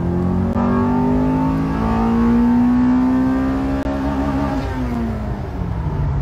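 1993 Honda Civic SiR (EG6)'s B16A four-cylinder VTEC engine, heard from inside the cabin, accelerating hard, its note rising steadily for about four seconds. About five seconds in the revs fall away.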